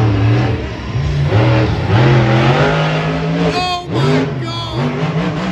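Monster truck engine revving hard in repeated surges, its pitch rising and dropping as the truck drives at and launches off a jump.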